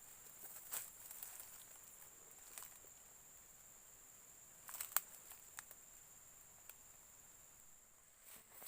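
Faint outdoor ambience: a steady high-pitched insect drone, with a few scattered clicks and rustles, the sharpest about five seconds in.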